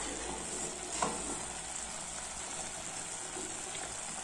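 Grated raw papaya sizzling steadily in a wok as it cooks down in a little water. A wooden spatula stirs it, with one knock about a second in.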